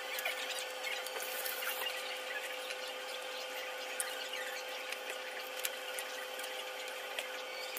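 Steady electric whine of a kitchen range-hood fan motor, with a few faint clicks of shellfish shells being peeled by hand.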